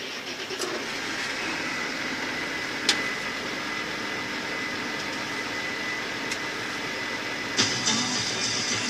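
Farm machinery engine running steadily, with a thin high whine over the drone of the harvest machinery, two faint clicks and music coming in near the end.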